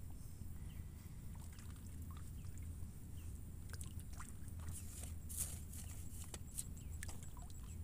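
Faint water sloshing with scattered small drips and splashes around an angler wading in lake water, over a low steady rumble.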